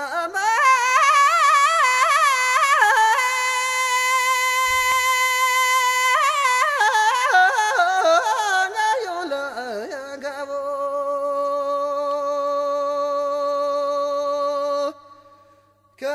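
Background music: a high solo voice singing long, wavering held notes and ornamented runs. It drops away sharply near the end.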